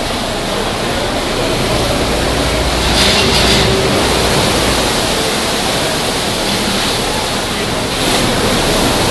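Rough sea surging against rocks and a moored boat's hull: a steady rush of churning water, with waves breaking a little louder about three seconds in and again near the end.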